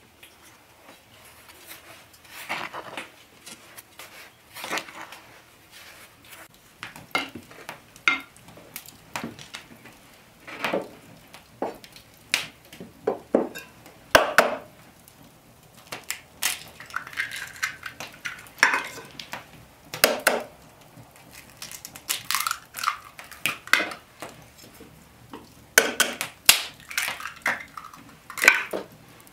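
Eggs being cracked and handled over earthenware bowls, with a spoon clinking against the ceramic. The sound is a long series of irregular sharp clicks and knocks, some with a short ring.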